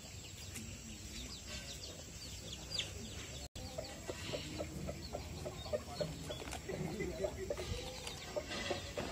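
Chickens clucking in short repeated calls, with high chirps from small birds in the first few seconds.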